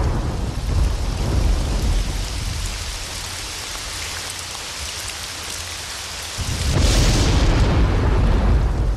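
Thunderstorm: steady rain with deep rolling thunder. The rumble eases for a few seconds, then swells louder again about six and a half seconds in.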